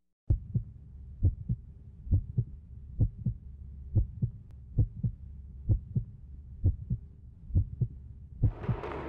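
Heartbeat sound effect: low double thumps, lub-dub, about once a second. Near the end a crowd's noise swells in over it.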